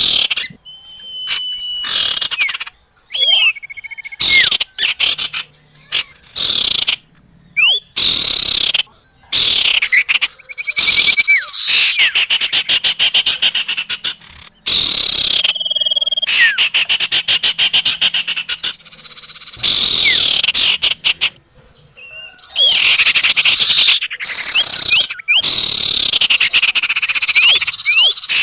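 Bird-lure recording of small songbird calls, sirtu and cipoh (common iora): rapid chattering trills at a high pitch, with quick sliding whistles and a few held whistle notes, broken by short abrupt pauses.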